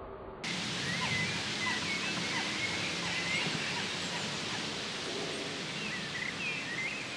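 Outdoor ambience that cuts in abruptly about half a second in: a steady hiss with small birds chirping throughout.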